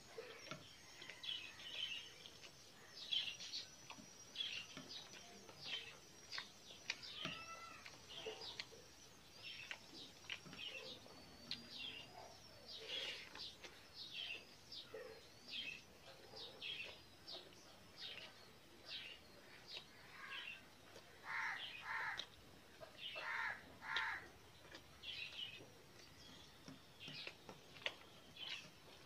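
Quiet wet chewing and lip-smacking from someone eating rice and curry by hand, with small clicks of fingers in the rice. Birds chirp in the background throughout, with a run of harsher, repeated calls like crow caws about two-thirds of the way through.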